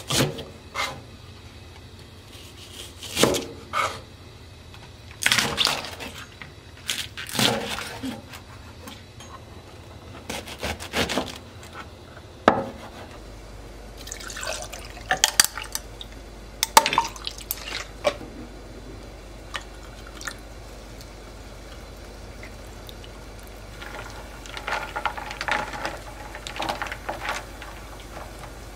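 A knife slicing through a Japanese leek (negi) in short, separate cuts. About halfway in, liquid is poured from a plastic bottle over ice into a tall glass, with the ice clicking. Near the end, a spoon stirs the drink and the ice clinks against the glass.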